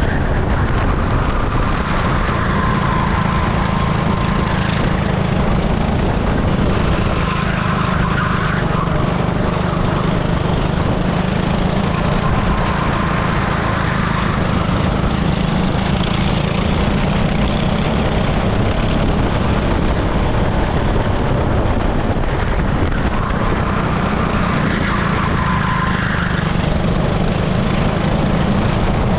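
Super kart's 18 hp engine running hard on a lap, heard from on board the kart, with a higher tone that comes and goes every few seconds.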